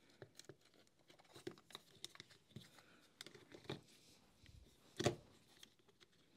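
Small clicks and rustles of wires and plastic parts being pressed by hand into the open plastic housing of a Makita cordless heat gun, with one louder knock about five seconds in.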